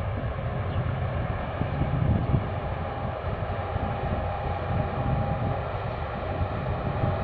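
Steady low rumble of a Cape-size ore bulk carrier's engine and exhaust as the ship's stern passes close by, leaving port.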